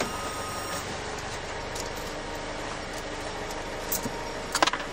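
Car engine idling steadily, with a few short light clicks near the end.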